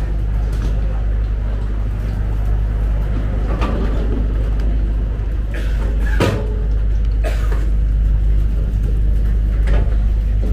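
Steady low hum of a high-speed passenger ferry's engines running at the dock, with a few sharp knocks and clunks, the loudest about six seconds in.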